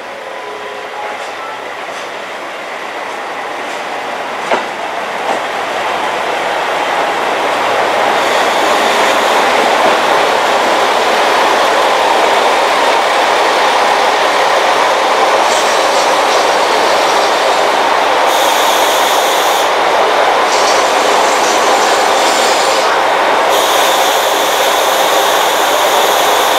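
JR Kyushu A-Train, a KiHa 185-series diesel railcar, pulling in along the platform and drawing up alongside, its running noise building over the first ten seconds and then holding steady and loud. A couple of knocks come early on, and a high-pitched sound cuts in and out several times in the second half.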